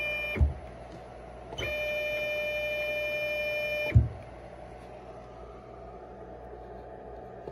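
KL23H2100-50-4BC NEMA 23 stepper motors under motion-controller drive, whining at a steady pitch while running. They glide down to a stop with a low thump about half a second in, ramp quickly back up a second later, run steadily for about two seconds, and glide down to another thumping stop about four seconds in. They stay quieter until they start again at the very end.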